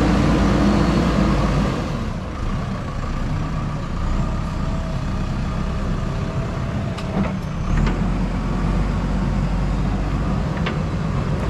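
A JCB backhoe loader's diesel engine working. It runs hard for about two seconds, eases off, then picks up again about two-thirds of the way through, with a few short metal clanks.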